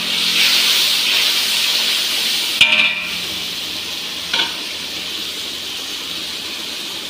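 Spice paste of garlic, onion and ground spices sizzling steadily as it fries in hot oil in a kadhai. A metal spoon strikes the pan with a ringing clink about two and a half seconds in, and knocks it more lightly a couple of seconds later.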